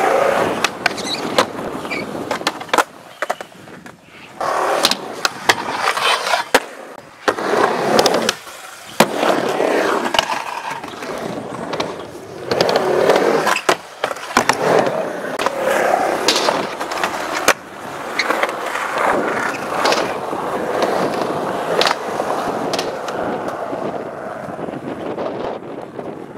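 Skateboard wheels rolling on concrete, broken again and again by sharp clacks of the board popping and landing, and by trucks scraping along ramp coping.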